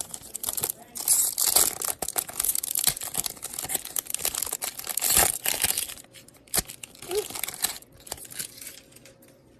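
Pokémon trading card booster pack being torn open, its foil wrapper crinkling densely for about five seconds, then a few lighter rustles and clicks as it is handled.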